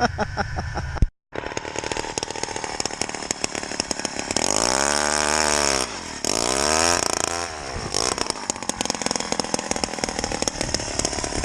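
Gas-powered two-stroke ice auger running, revved up twice for a second or two each, its pitch rising and falling as it bores through the ice.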